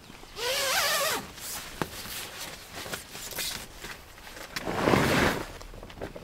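A zipper pulled quickly once, with a rasping sound that wavers in pitch. A few small clicks follow, then a louder rustle of handled gear near the end.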